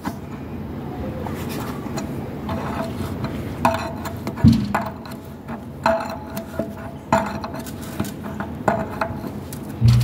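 Sharp metallic clinks and knocks, about six of them a second or so apart in the second half, from a braided hose's threaded fitting being worked onto an electric water heater's pipe connection, each with a brief ring. A steady low hum runs underneath.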